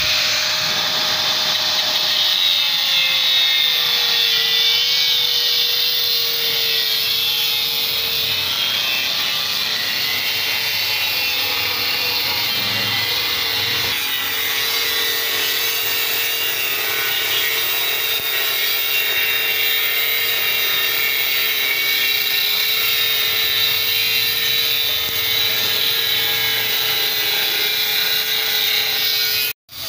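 Angle grinder with a cutting disc running steadily as it cuts through the steel shell of a rotary compressor: a steady whine over a harsh grinding hiss, the whine dipping slightly in pitch about two seconds in as the disc bites. The sound breaks off for a moment near the end.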